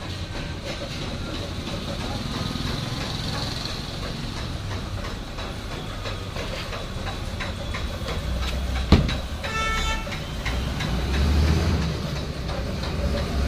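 Steady low mechanical rumble with scattered small clicks. About nine seconds in comes a single sharp knock, then a brief stuttering tone, and the rumble swells louder near the end.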